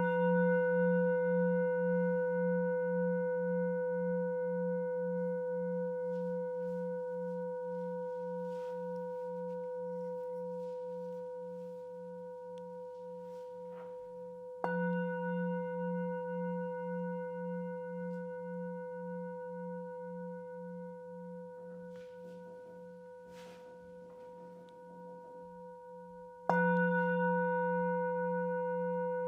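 A deep, bell-like ringing tone, struck again about halfway through and once more near the end. Each strike rings on and slowly fades, with a low pulsing hum under steadier higher tones.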